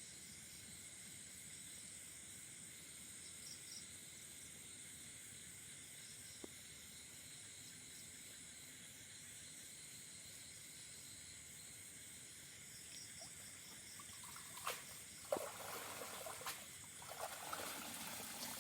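Faint steady high-pitched night chirring of insects. In the last few seconds, water splashes and drips as a cast net is hauled out of a pond.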